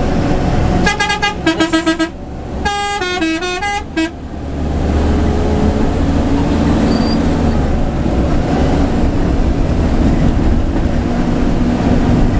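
Bus's musical multi-tone air horn (telolet-style) sounds about a second in: first a quick string of short toots, about five a second, then a short tune stepping up and down in pitch. After that the bus's front-mounted diesel engine runs steadily with road noise.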